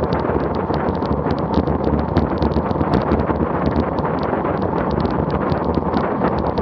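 Heavy wind buffeting on an action camera's microphone at about 36 mph on a bicycle descent: a loud, steady rush broken by rapid irregular crackles, with tyre and road noise underneath.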